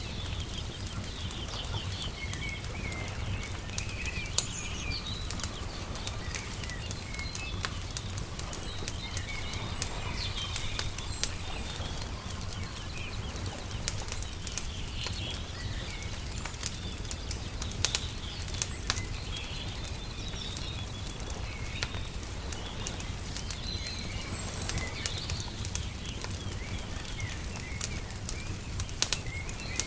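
Wood fire crackling, with scattered sharp pops over a steady low rumble, and small birds chirping now and then in the background.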